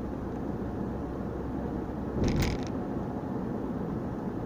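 Steady road and engine noise heard inside a moving car's cabin, with one brief loud knock or clatter about two seconds in.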